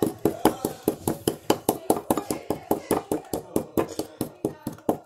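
A small hammer-pick tapping rapidly at a plaster dinosaur egg, chipping the shell away, about four to five sharp taps a second.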